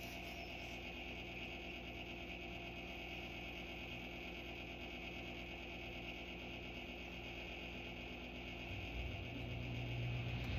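Steady motor hum with a low drone that grows louder about nine seconds in.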